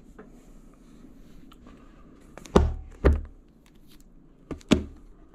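Books being set down on a tabletop: two heavy thuds about half a second apart, followed about a second later by two lighter knocks.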